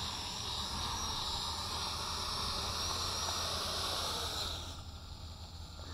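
Hubsan H507A mini quadcopter's motors and propellers whirring as it comes in to land, a steady airy hiss with a thin high whine. About five seconds in, it fades as the motors spin down after touchdown.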